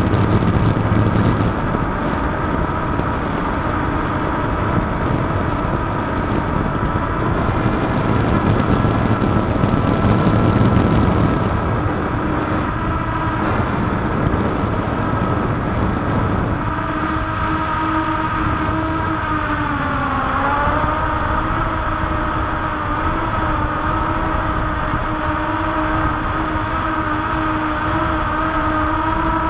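Drone motors and propellers whining steadily, heard from the drone's onboard camera as several steady tones together. The pitch dips briefly about 20 seconds in, then settles again. A low rumbling noise lies under it through the first half.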